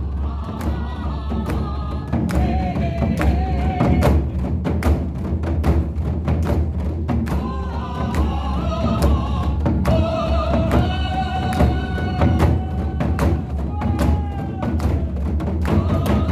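Drum struck over and over in quick, dense strokes with a deep, resounding boom. A high, held melodic line sounds over it in two stretches, the first near the start and the second from about the middle on.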